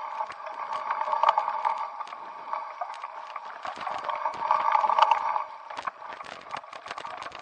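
Mountain bike ridden over a dirt trail: a steady buzz that swells twice, under many quick rattles and clicks from the bike jolting over bumps.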